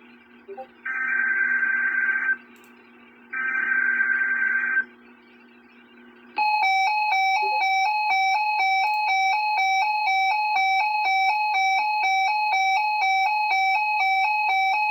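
Emergency Alert System SAME header on weather radio: two harsh digital data bursts of about a second and a half each, then from about six seconds in a loud alert tone switching between two pitches about twice a second. The alert tone announces an incoming weather alert message.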